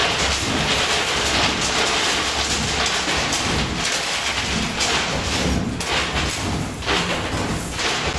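Coin pusher arcade machine in play: a steady rattling clatter of coins on the pusher playfield.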